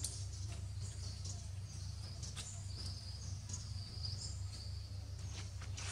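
Forest ambience: short high bird chirps and insect calls, a few faint clicks, over a steady low rumble.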